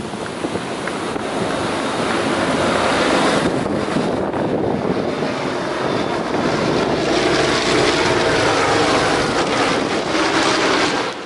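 Canadair CL-215 water bomber's twin Pratt & Whitney R-2800 radial piston engines droning as it flies past, getting louder a couple of seconds in, with wind noise on the microphone.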